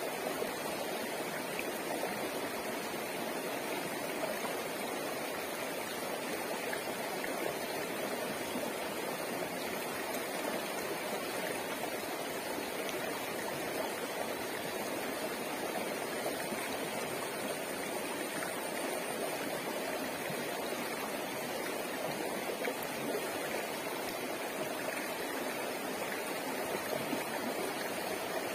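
A shallow rocky stream flowing steadily over stones in small riffles, an even, unbroken rush of water.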